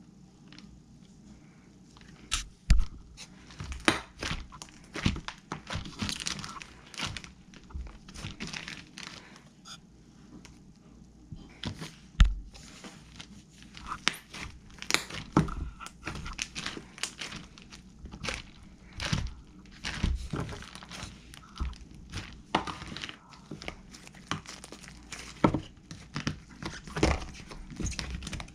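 Handmade slime being squeezed, stretched and poked by hand, giving off irregular pops, clicks and crackles that start about two seconds in and keep going.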